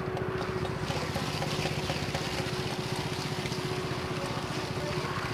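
Concrete power trowel (a 'helicopter') running steadily as its blades float a freshly poured concrete slab; its small engine runs at an even pace with a steady hum and low pulse.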